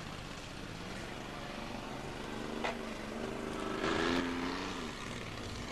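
Demolition-derby car engines running across the track, one engine revving up and then easing off in the middle, with a single sharp knock about two and a half seconds in.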